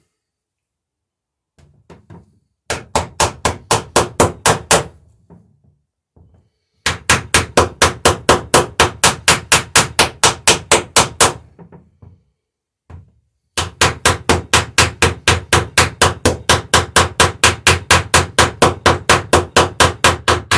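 Ball-peen hammer peening copper rivets in the wooden planking of a boat hull: quick, even blows, about five a second, in three long runs with short pauses and a few light taps between.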